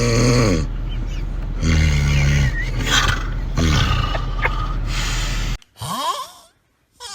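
Strange, loud snoring: a series of pitched snoring breaths that fall in pitch, about one every second, over a low hum that stops about five and a half seconds in. Shorter sounds with silent gaps between them follow.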